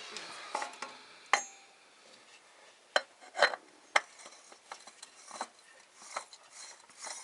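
Metal tools and engine parts being handled and set down: scattered sharp clinks and taps, a few loud ones in the first four seconds, then softer ones.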